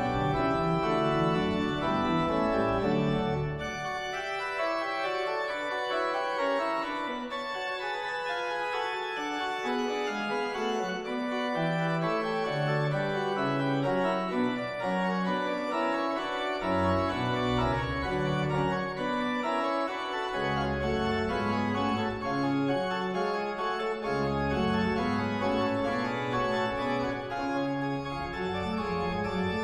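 Church pipe organ playing a piece in full, sustained chords. The deep bass notes drop out about four seconds in and come back a little past the middle.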